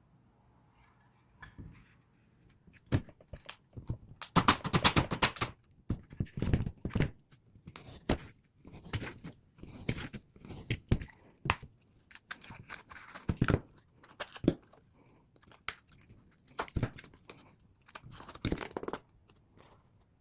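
Hand work on a drywall patch: a run of short, irregular tearing, cutting and scraping strokes, with a longer stroke about four seconds in.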